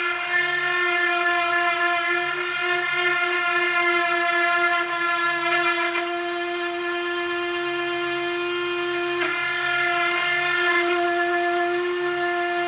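Electric power sander running steadily against wood, a constant high-pitched motor whine.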